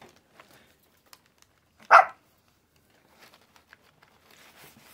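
A single short dog bark about two seconds in. Faint rustling of crumpled kraft packing paper around it as kittens shift in a cardboard box.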